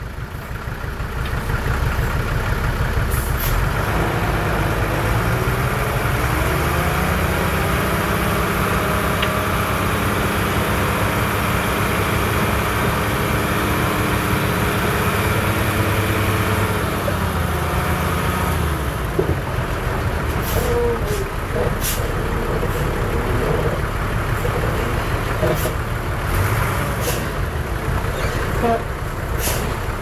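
Heavy diesel engine of earthmoving machinery working: it revs up a few seconds in, holds under load, then eases off about midway. Several sharp knocks follow in the second half.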